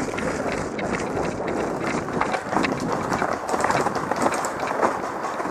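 Running footsteps with the rustle of clothing and gear, a busy run of short scuffs and crunches.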